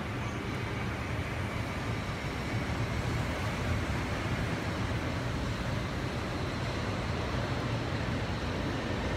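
Steady road traffic noise: a low, even rumble with no distinct events.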